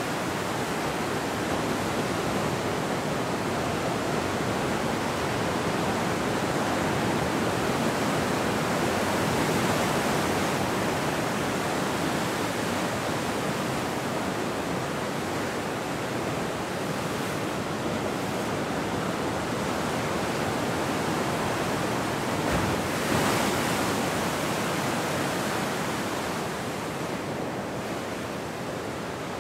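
Ocean surf breaking continuously, a steady wash of white-water noise. Late on, one wave breaks close by and the sound swells briefly louder.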